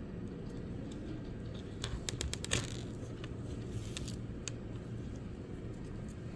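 Beads clicking and tapping against each other and on the countertop as the beaded ornament is handled and its leather lace pulled through. There is a quick cluster of clicks about two seconds in, a few more around four seconds, and a steady low hum underneath.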